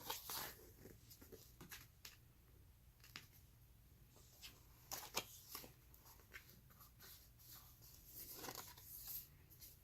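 Faint rustles and soft taps of thick board-book pages being turned and flaps lifted, scattered brief sounds against near silence, a few a little louder about five seconds in and near the end.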